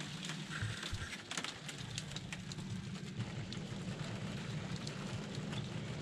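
Falling snow pattering steadily, a dense run of fine ticks on the surroundings, over a low steady hum.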